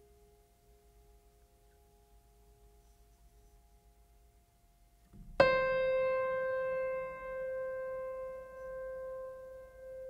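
Background music: a faint held tone fades out, then a single piano note is struck about halfway through and rings on, slowly dying away.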